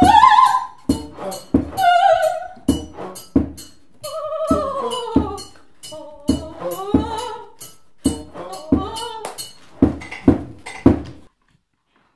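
A woman's high operatic voice singing sliding, wavering phrases, cut across by irregular sharp percussive strikes. The sound stops abruptly about eleven seconds in.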